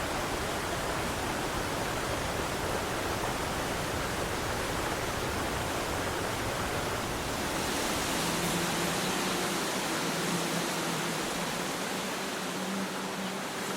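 Steady rushing water, like a waterfall or stream. About eight seconds in, the deep rumble drops away and a faint steady low hum comes in.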